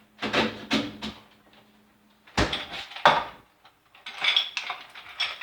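Ice cubes clattering into a blender jar: a few separate knocks, then a denser rattling spill near the end.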